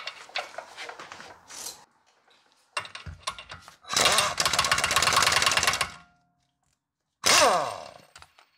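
Power impact wrench hammering the axle nut onto the drive shaft to pull the hub back together: about two seconds of loud, rapid hammering, after a few light clicks. Near the end comes a short burst from the tool, falling in pitch.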